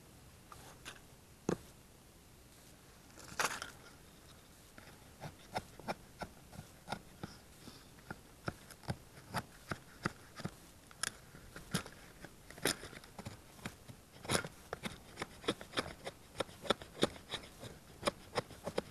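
Ka-Bar straight-edge knife shaving feather curls off a wooden stick. Each stroke is a short, crisp cut, a few single ones at first, then a steady run of about one to two a second from about five seconds in.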